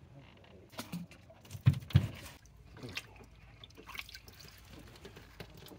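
Water splashing and dripping as a hand rummages in a bait bucket of water for a live bluegill. There are small clicks throughout, and two loud, dull thumps come a fraction of a second apart about two seconds in.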